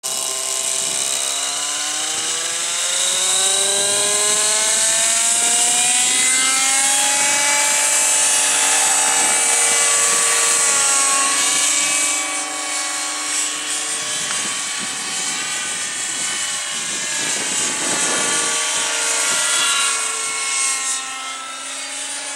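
Nitro-engined JR Vibe 50 radio-controlled helicopter. Its engine and rotors rise steadily in pitch over the first several seconds as it spools up on the ground, then run loud and steady. After a cut, it is heard in flight, its pitch shifting up and down as it manoeuvres.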